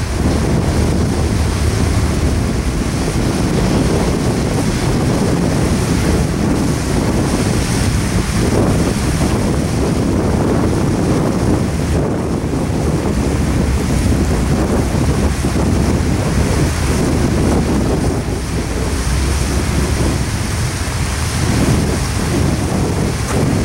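Double-stack intermodal freight cars rolling past on a bridge: a steady, loud rumble of steel wheels on rail, mixed with wind buffeting the microphone.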